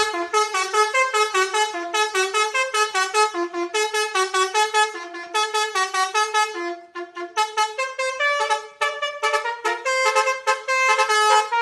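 Basuri 'telolet' multi-tone horn playing a fast tune of short, rapidly changing pitched notes. It pauses briefly about seven seconds in, then goes on with a different run of notes.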